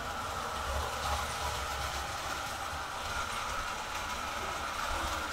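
Vintage Marx electric toy train running around its metal track: a steady, even rumble and whir from the motor and the wheels on the rails.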